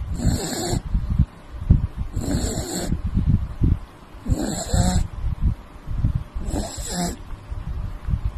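A wrinkle-faced puppy snoring in its sleep: four rasping snores on the in-breath, about two seconds apart.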